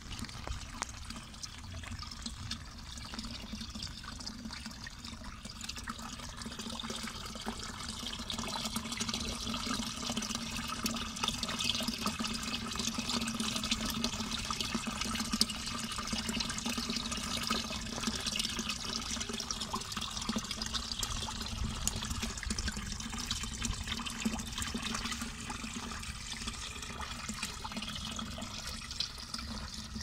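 Rainwater running along a shallow stone-lined roadside gutter and into a storm drain grate: a steady trickling flow, louder through the middle stretch.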